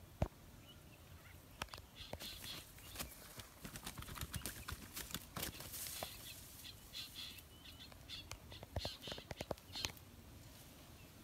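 A freshly hooked fish flapping in the grass while being handled, with irregular slaps and rustling of grass and leaves.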